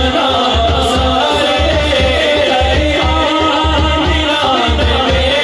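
A man singing a devotional kalam through a microphone and PA, with held accompanying tones under a steady low beat of about two pulses a second.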